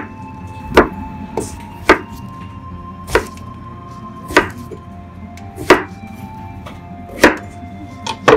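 Kitchen knife cutting through an eggplant and knocking on a wooden cutting board: about eight sharp chops, roughly one every second, over soft background music.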